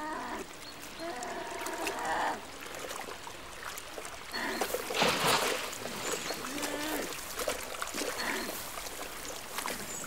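Brown bear cubs whining in high, wavering calls several times, the impatient calls of hungry cubs waiting for food, over a shallow river running over stones. A bear splashes in the water about five seconds in.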